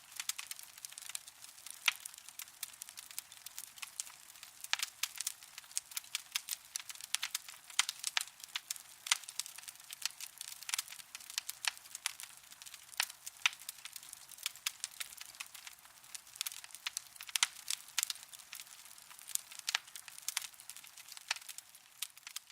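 Burning coals crackling: an irregular run of sharp pops and snaps, several a second, over a faint hiss, with no low rumble underneath.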